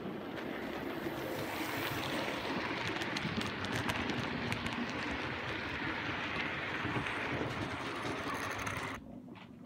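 Model train running along the layout's track: a steady rumble and hiss with light clicks through it, cutting off suddenly near the end.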